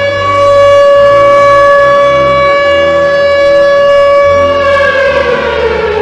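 Civil defense siren holding one steady high tone, then falling in pitch near the end as it winds down, with low sustained notes underneath.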